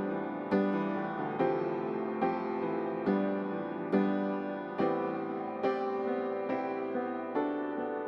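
Slow, gentle background piano music, with a chord struck about once a second and left to ring and fade.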